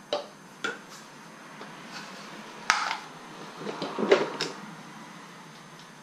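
Hard plastic clicks and knocks from PVC pipe pieces and a 90-degree PVC elbow being handled on a workbench while fittings are readied for cementing. A few sharp clacks, the loudest about two and a half seconds in, and a small cluster of knocks around four seconds.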